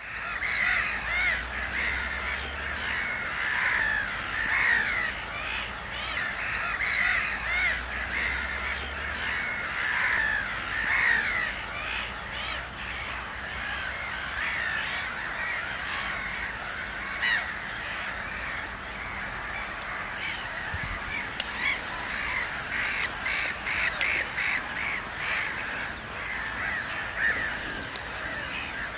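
A dense chorus of many overlapping animal calls, short repeated notes that carry on without a break.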